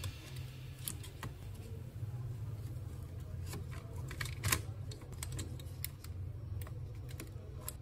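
Irregular light clicks and taps from plastic laptop parts or keys being handled, over a low steady background.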